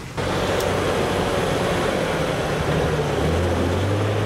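Off-road Jeep engine running steadily under a loud, broad rushing noise that starts abruptly just after the start; the engine note steps up slightly about three seconds in.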